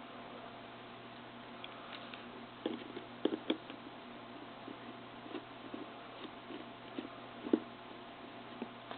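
Faint scattered clicks and taps of a tiny screwdriver and small screws on a cellphone's circuit board, over a steady hiss. A cluster of louder ticks comes about three seconds in, and a single sharp one comes about two-thirds of the way through.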